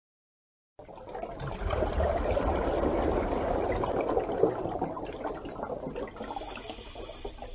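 A steady rushing water sound that starts suddenly about a second in, after silence, with a low rumble underneath.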